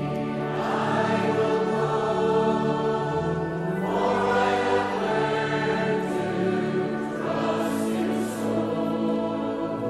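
A choir singing a hymn, with new sung phrases starting roughly every three to four seconds.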